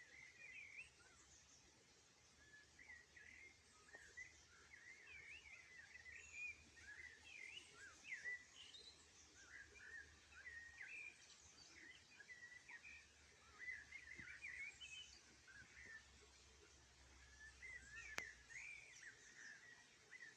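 Faint birdsong: a dense, continuous run of short, quick chirps and twitters, with one sharp click near the end.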